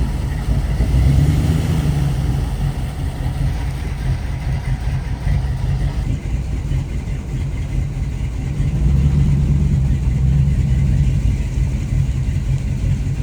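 Vehicle engine running under load and revving up twice, about a second in and again about nine seconds in, as it is driven through mud.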